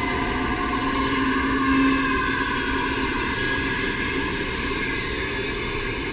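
Animated Halloween TV prop playing a steady hiss of TV static.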